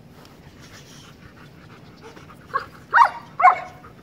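German Shepherd barking at a handler holding a bite tug during bite training: three quick barks in the second half, the first lighter than the other two.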